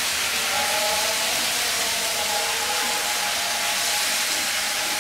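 Diced potatoes and eggplant sizzling in hot oil with a little water in a pan, a steady hiss.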